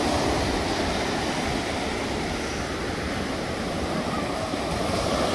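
Small surf breaking and washing up a sandy beach in a steady rush, with wind buffeting the microphone.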